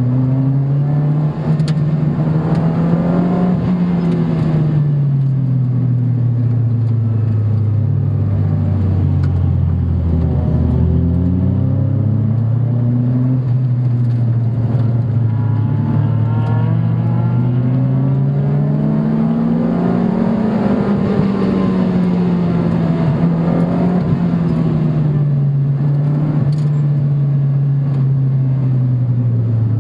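Car engine heard from inside the car while it is driven hard around a race circuit, its revs climbing and falling in long sweeps of several seconds as it accelerates and slows.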